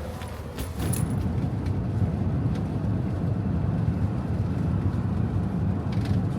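Steady low rumble of road and engine noise inside a moving vehicle. It grows louder about a second in and cuts off abruptly at the end.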